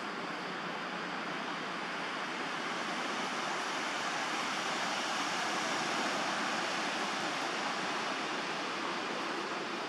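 Steady rushing outdoor background noise with no distinct events, swelling slightly about halfway through.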